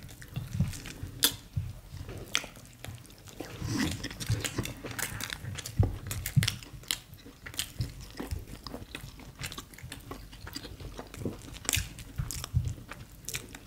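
Close-up chewing and eating mouth sounds of people eating mashed ewa agoyin beans in sauce with soft bread and fried plantain, with many short sharp clicks throughout.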